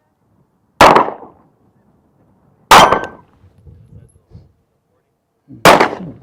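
Three shots from a Sig P365 9mm pistol, about two to three seconds apart, each ringing out briefly.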